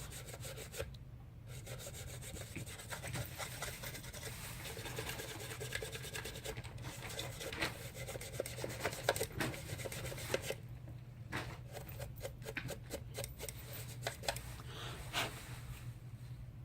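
Irregular scratching and rubbing strokes on a smartphone frame as it is cleaned of dust, over a low steady hum.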